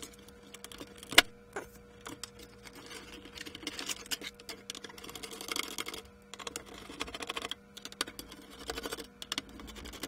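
Connectors being pulled off and the top circuit board being lifted out of an Ohmeda Biox 3700 pulse oximeter: an irregular run of small plastic clicks, scrapes and rattles, with one sharp, loud click about a second in.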